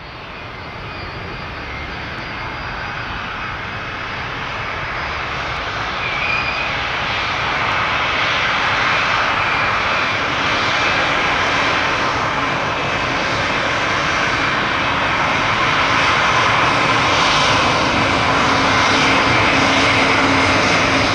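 Jet airliner's engines running at power, a dense steady noise with a faint high whine that grows gradually louder throughout.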